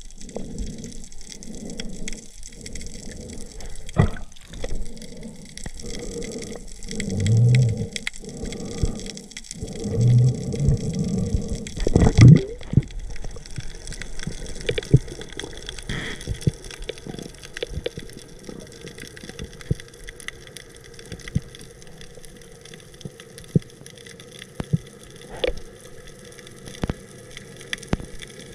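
Water sloshing and gurgling. For the first twelve seconds or so it comes in low surges about once a second, then settles into a steady hiss with scattered small clicks.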